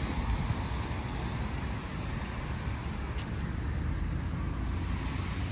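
Steady city street noise with a low rumble of traffic.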